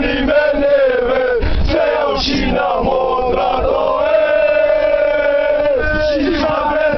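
A group of male sports supporters chanting and singing a fan song in unison inside a coach bus. A long held sung note about four seconds in breaks off before the chanting resumes.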